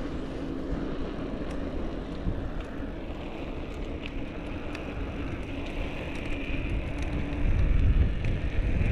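Wind buffeting an uncovered camera microphone during a bicycle ride: a rumbling that grows stronger near the end, with a steady low hum underneath.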